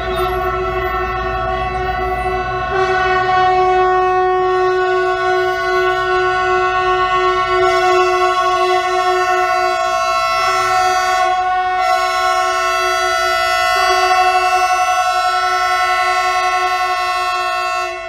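Locomotive horns held in long, overlapping blasts as a train of freight locomotives rolls slowly through the station. The tones shift a few times, with a low train rumble underneath at first.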